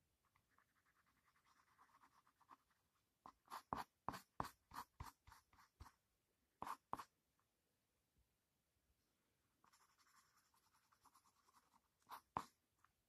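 Pencil scratching on paper in shading strokes: a soft, fast scratching at first, then a run of short, sharper strokes about two a second from about three to six seconds in, and more soft shading near the end.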